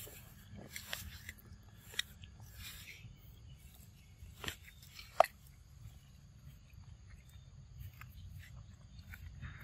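Monkey biting into and chewing a crisp green fruit: scattered short crunches and clicks, with one sharp sound about five seconds in the loudest.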